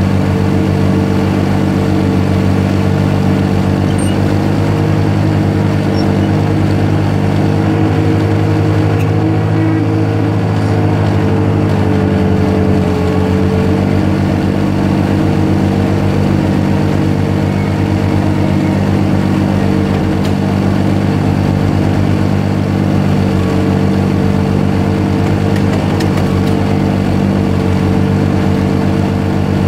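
Zamboni ice resurfacer's engine running steadily as the machine drives across the ice, a loud, even drone picked up from on top of the machine.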